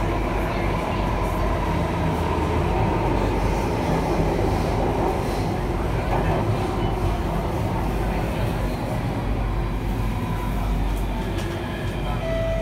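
Alstom Metropolis C830 metro train running through a tunnel, heard from inside the passenger car: a steady low running noise of wheels on rail and the train's equipment.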